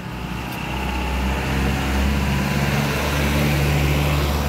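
A motor vehicle's engine running steadily, growing louder over the first couple of seconds.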